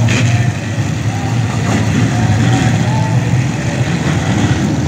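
A pack of dirt-track race cars running hard around the oval, their engines making a loud, steady drone.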